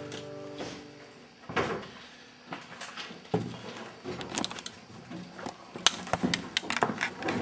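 Scattered knocks, clicks and clatter, coming closer together near the end. A music chord dies away just at the start.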